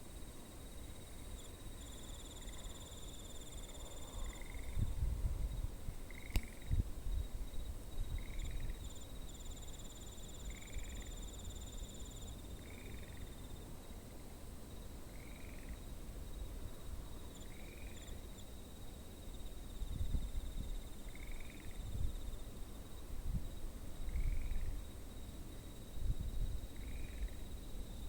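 Insects singing outdoors: a steady high trill, with a short chirping call repeating about every second and a half. Intermittent low rumbles come and go underneath.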